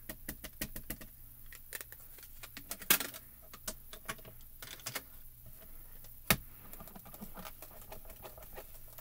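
Rapid light taps and small plastic clicks of an ink pad being dabbed onto a clear acrylic stamp and the stamp being handled, with a sharper clack about six seconds in.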